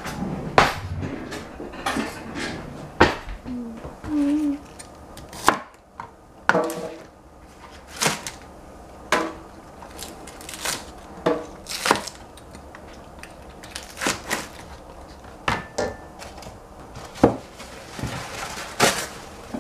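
Chinese cleaver chopping green onions on a plastic cutting board: single sharp chops at uneven intervals, roughly one a second.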